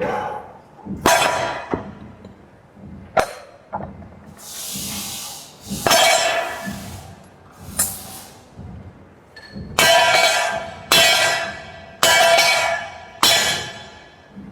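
Axe chopping and splitting wood: about eight sharp blows, each with a brief ringing after it, the last four coming about a second apart. A freshly assembled axe being tried out.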